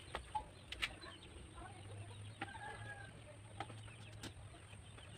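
Faint clucking of chickens in the background, with a few light knocks and clicks as a plywood board is handled against a steel chair frame.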